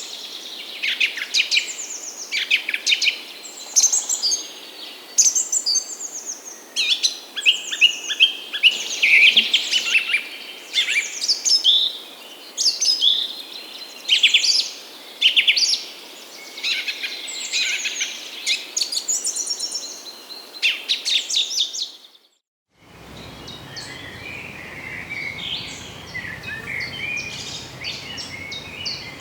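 Birds singing, a dense run of rapid high chirps and trilled phrases. About 22 seconds in it cuts to a moment of silence, then to a quieter recording of fainter chirping over a low background hum.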